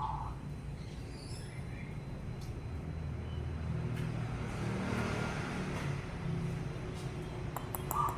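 A vehicle passing by: a low rumble that swells to its loudest about five seconds in and then fades. Near the end a zebra dove starts cooing again.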